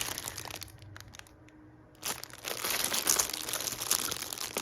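Packaging crinkling while cloth diapers are handled and unwrapped: a run of crackly rustling that dies down for about a second, then picks up again.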